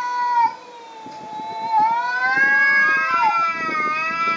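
Tom cats yowling at each other in a territorial standoff before a fight: long, wavering wails. One ends about half a second in, and another swells from about a second in and is held to the end.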